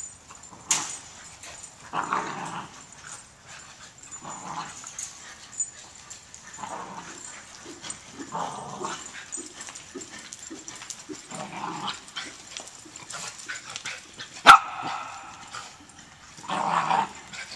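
Animal sounds repeating every second or two, with one sharp, loud knock about fourteen seconds in.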